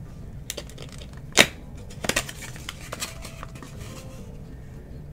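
A small cardboard product box and its packaging being opened and handled: scattered clicks and taps, with one sharp crack about a second and a half in, the loudest sound, and a quick run of clicks just after two seconds.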